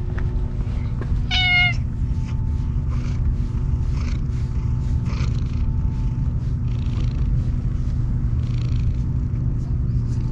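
Tabby-and-white stray cat meowing once, a short high meow about a second and a half in, over a steady low rumble.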